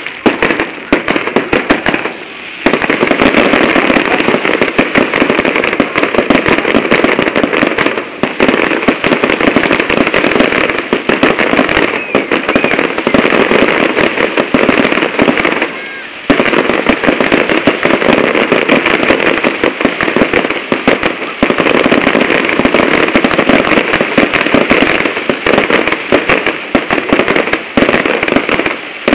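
Fireworks display going off in a dense, continuous barrage of bangs and crackles, with brief lulls about two seconds in and again around sixteen seconds.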